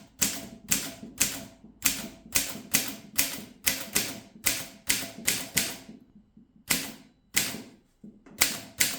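Keys of a 1940s Groma Model N manual typewriter being struck in a steady run, about three strokes a second, with a short pause about two-thirds of the way through before typing resumes. The machine types cleanly, with no typebars jamming.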